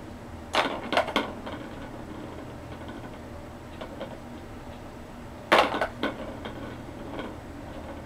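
Kitten batting the ball inside a plastic circular track cat toy: two bursts of rattling plastic clatter, about half a second in and again, louder, about five and a half seconds in, with light ticks in between.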